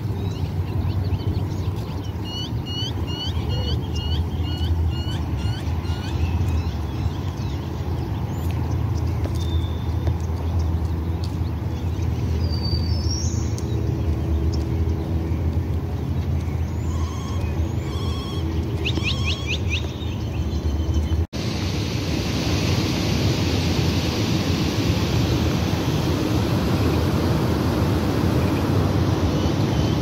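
Outdoor ambience: a steady low rumble with small birds calling over it, first a quick run of about ten repeated chirps, then scattered calls around the middle. After a cut about two-thirds of the way through, the background turns into a brighter, steadier rushing hiss.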